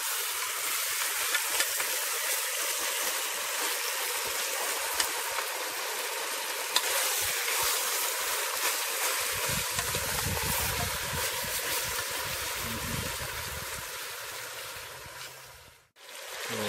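Cow tail browning in hot oil in a pressure cooker pot: a steady sizzle with a few sharper pops, fading out near the end.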